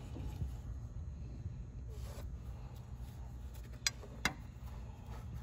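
Two light metallic clicks about four seconds in, a thin steel rod knocking against the valve bore of a Gardner Denver 5x6 mud pump's steel fluid end as it is worked down beneath the valve seat, over a steady low rumble.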